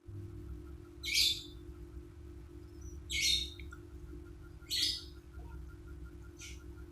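Lovebird giving loud, shrill, harsh calls: three about two seconds apart, then a fainter one near the end.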